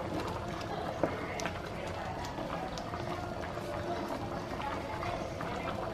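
Rice and black beans in broth boiling in a frying pan, a steady bubbling with many small pops as a spatula stirs through it, and one sharper click about a second in.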